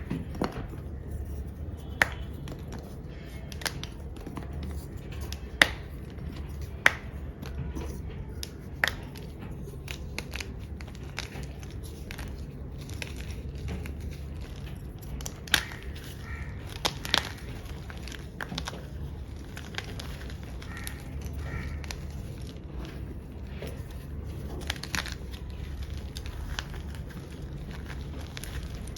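A block of black-dyed gym chalk being crushed: scattered sharp cracks and crunches, a second or several apart, over a steady low hum.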